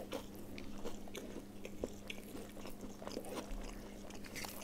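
Faint close-up eating sounds: small wet clicks of chewing and of fingers working rice and curry on a plate, scattered and irregular, over a steady low hum.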